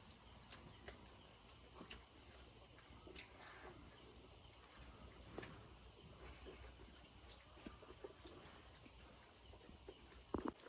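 Near silence: crickets chirring steadily in the background, with faint scattered clicks.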